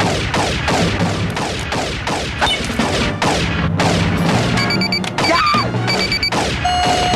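Cartoon blaster-gun sound effects: a rapid string of falling zaps, about three a second, from a robot's gun arms, over action music. Electronic beeping joins about two thirds of the way through.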